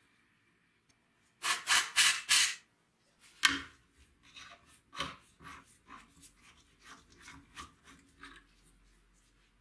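Screwdriver scraping and rasping inside a hole in a rusty chainsaw's housing. Four loud scrapes come about a second and a half in, then one sharp scrape, then lighter strokes about twice a second that fade out near the end.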